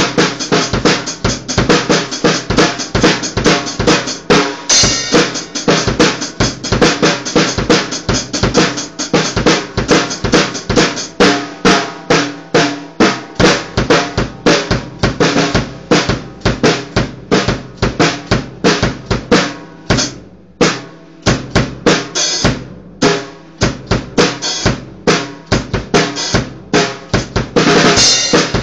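Acoustic drum kit played solo, with snare and bass drum hits coming several times a second in a steady groove. The playing lets up briefly about twenty seconds in, and a cymbal crash rings near the end.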